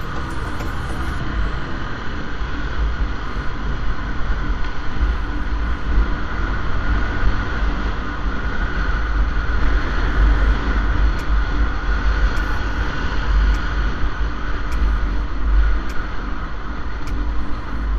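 Riding noise from a motorcycle under way: a steady engine-and-road drone under heavy wind rumble buffeting the action camera's microphone.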